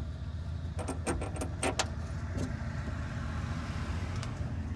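Small metal hardware clinking: a quick run of sharp metallic clicks about a second in, as washers and nuts are handled while being fitted onto carriage bolts, over a steady low hum.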